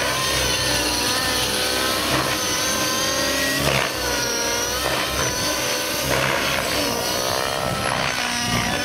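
Nitro RC helicopter in aerobatic flight: its glow engine and rotor keep rising and falling in pitch as the throttle and blade pitch change through the manoeuvres.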